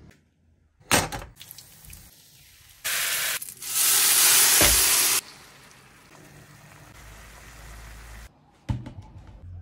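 Red sauce poured over a pan of baked tepsi mantı dumplings, sizzling loudly for about two seconds, then settling into a quieter steady sizzle. A sharp knock comes about a second in and another near the end.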